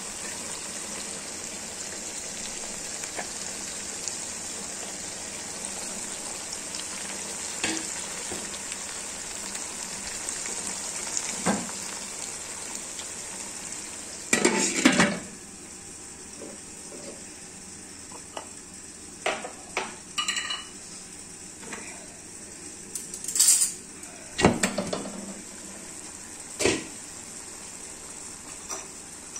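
Liver curry sizzling in a pot, a steady frying hiss, with a metal spoon clinking and scraping against the pot now and then. A louder clatter comes about halfway through, and after it the sizzle is quieter.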